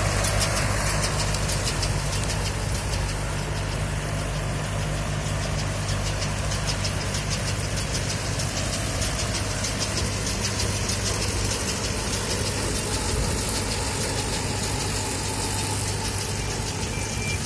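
Tractor engine running steadily with a low hum, over a rapid, even ticking.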